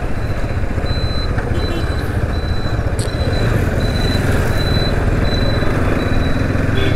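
Bajaj Pulsar NS200's single-cylinder engine running steadily under way at low speed, with wind and road noise. A faint high-pitched beep repeats a little faster than once a second.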